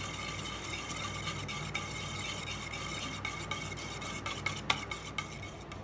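A wire whisk beating a thin milk, egg and condensed-milk custard mixture in a steel bowl. There is a steady wet swishing, with light ticks of the wires against the bowl, more frequent after about the middle.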